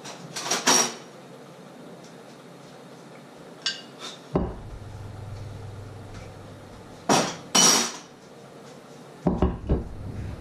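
Dishes and cutlery clinking in four short bursts: a metal spoon and a china plate being handled, the plate set down on a wooden chopping board near the end.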